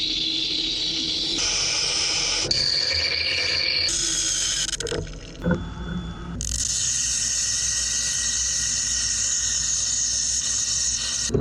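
Wire EDM machine cutting metal, a steady hiss of flushing water, changing abruptly several times.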